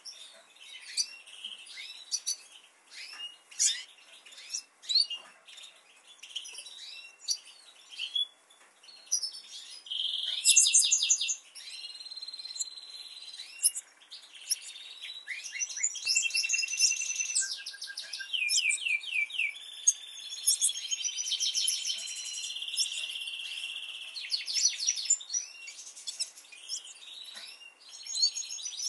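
Domestic canaries calling and singing: short rising chirps at first, then from about ten seconds in a canary song of rapid trills and long held whistled notes.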